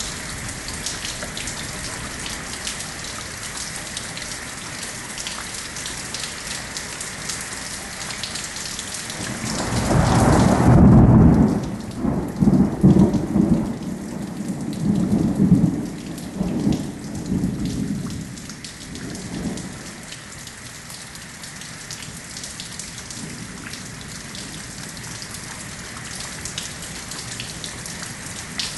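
Steady rain falling, with the patter of drops. About a third of the way through, a peal of thunder comes in: a low rumble loudest at first, then rolling on in several swells for about ten seconds before it fades.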